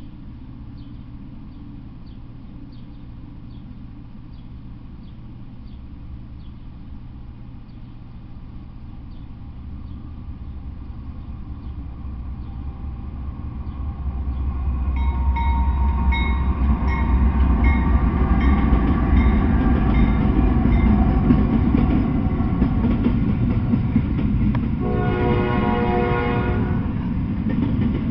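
Double-stack intermodal container freight train approaching and passing close by: a low rumble builds through the first half and peaks as the locomotives and loaded well cars go by, with high ringing tones partway through the pass. Near the end a horn sounds for about two seconds.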